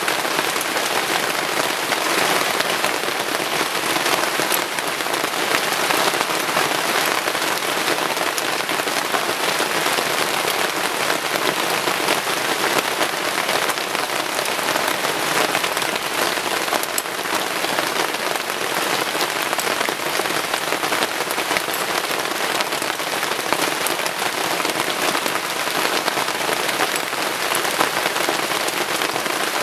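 Heavy rain falling steadily: a dense, even patter of many small drop ticks that does not let up.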